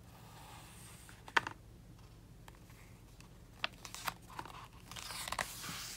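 Faint handling of a paper picture book: a few light clicks and taps of fingers on the pages, then a soft rustle of a page being turned near the end.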